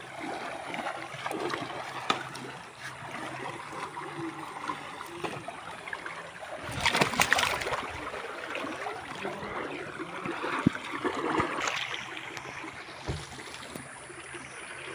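A fast, muddy stream running steadily, with splashing from someone wading through it; the noise swells louder about halfway through.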